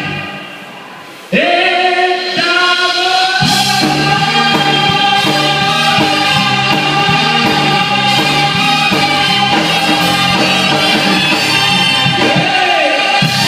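Live singing with a backing band: the music drops away briefly, then a singer comes in about a second in and holds one long high note for about ten seconds while the band plays on beneath it, the note wavering near the end.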